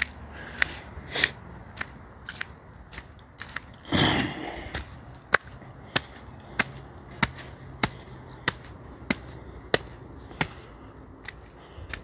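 Footsteps on concrete steps and paving, sharp, even steps about one and a half a second, with a short louder noise about four seconds in.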